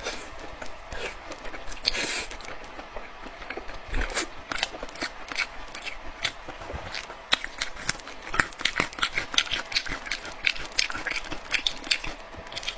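Close-miked eating of red braised pork belly: wet chewing and lip-smacking, a dense run of short mouth clicks that grows busier in the second half.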